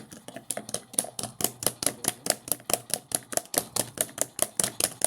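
Rapid, even mechanical clicking, about five clicks a second, steady throughout.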